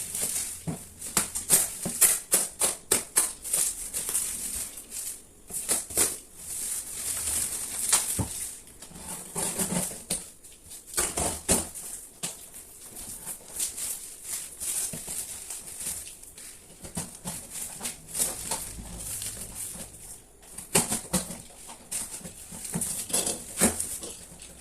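Plastic packaging and bubble wrap crinkling and rustling as a parcel is unwrapped, with many irregular crackles and clicks and a few short pauses.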